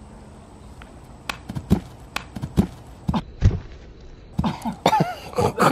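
Soft thuds and footfalls of a barefoot person on grass during a backflip attempt, the heaviest thud about three and a half seconds in as he comes down on his hands and knees. In the last second or so, a few short vocal sounds from him.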